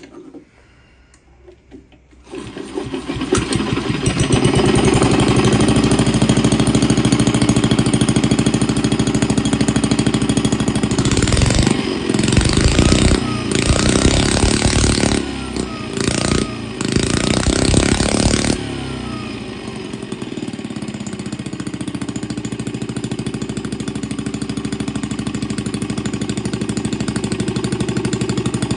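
Miniature model diesel engine with a generator, starting about two seconds in and then running with a fast, even beat. From about the middle it gets louder in choppy spells for several seconds, then settles back to a steady run.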